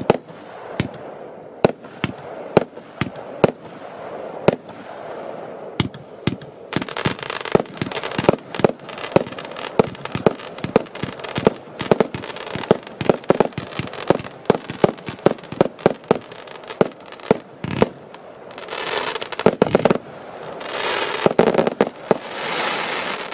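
Compound fireworks cake firing its finale: a long run of sharp shots and bursts, a couple a second at first, then coming thick and fast from about a quarter of the way in. Between and over them comes a dense crackling hiss from crackling stars, which swells up twice more near the end.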